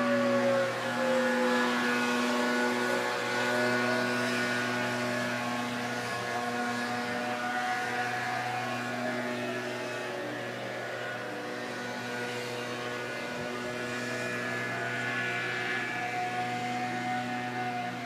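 Outdoor tornado warning siren sounding during a test, its wail slowly falling and rising in pitch, about twice over the stretch.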